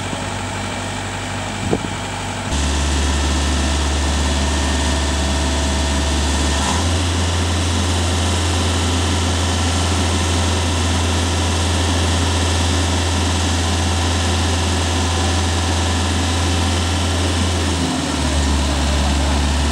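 Electric wood router running steadily while shaping a curved wooden piece to match a template. It comes up to full power a couple of seconds in, a loud, even drone with a hiss of cutting on top, shifting slightly in tone twice along the way.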